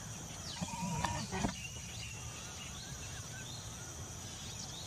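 Birds chirping over a steady high insect drone. About half a second in there is a short bleat-like call, followed by two sharp knocks about half a second apart.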